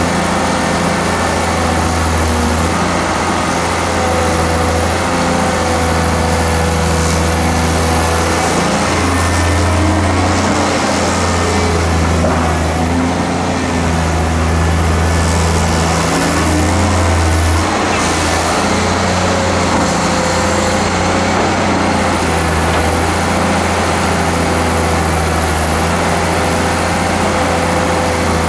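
Diesel engine of a Hyundai R290LC-3 crawler excavator running steadily, its note shifting as the hydraulics work the boom and bucket to dig sand and swing.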